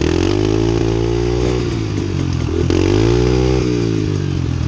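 Dirt bike engine revving up and easing off twice, its pitch climbing over the first second and a half, dropping, then rising again and falling back sharply about three and a half seconds in.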